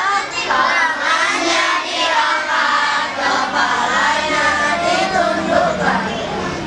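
A group of children reciting the prayer before eating together in a sing-song chant.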